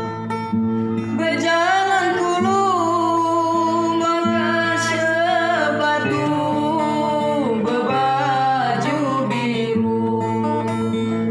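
Batanghari Sembilan regional folk song: a solo voice sings a long, ornamented line with wavering, sliding pitch over plucked acoustic guitar. The voice comes in about a second in and stops shortly before the end, leaving the guitar playing alone.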